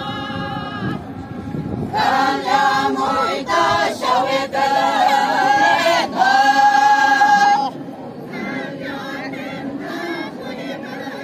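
A group of Naga women singing a folk chant together, unaccompanied. The singing gets loud about two seconds in, with long held notes, and drops back to a softer chant a little before eight seconds.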